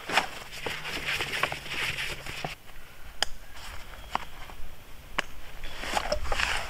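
Rustling of a loaded nylon backpack and a folded closed-cell foam sleeping pad as the pad is strapped onto the pack, with three sharp clicks about a second apart in the middle and more rustling as the pack is lifted near the end.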